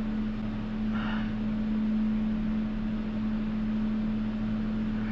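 Space heater running with a steady, even hum. A brief soft rustle comes about a second in.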